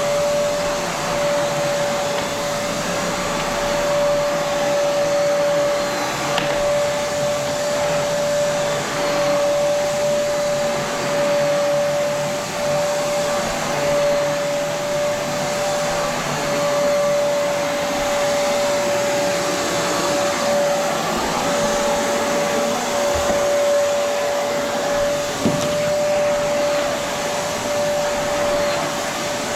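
Vacuum cleaner running steadily while it is pushed over carpet: a constant rush of air with a steady motor whine. There is one brief knock near the end.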